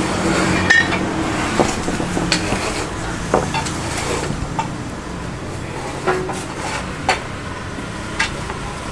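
Irregular clinks and knocks of metal utensils and pans, about one a second, over a steady background hum.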